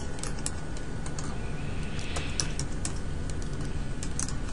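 Typing on a computer keyboard: irregular single keystroke clicks, over a steady low hum.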